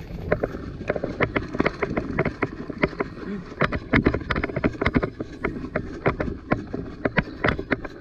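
Scattered airsoft gun shots: irregular sharp pops, several a second, over low wind rumble on the microphone.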